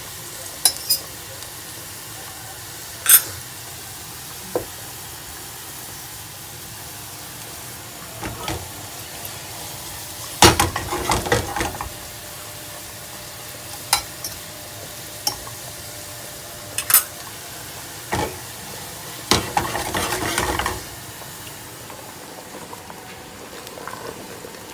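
Sliced onions frying in oil in an aluminium saucepan, a steady sizzle as they cook down towards golden. Metal clinks and scrapes of stirring against the pan come now and then, with two longer bouts of clatter partway through and near the end.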